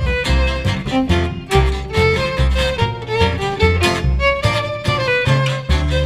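Background music: a fiddle tune over a steady bass beat.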